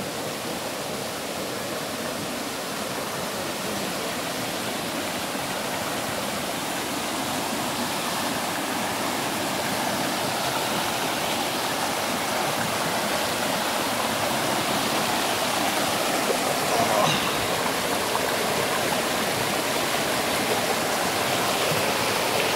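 Fast, shallow mountain stream rushing over rocks in a steady white-water rush that grows gradually louder.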